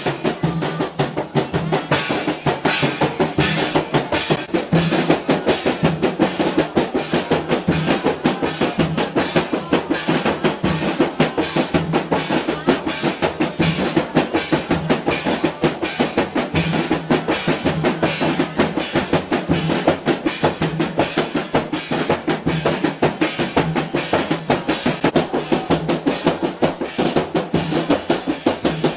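Mandar rebana ensemble: large hand-beaten frame drums (rebana) with a snare drum played with sticks, in a fast, steady, dense drumming rhythm.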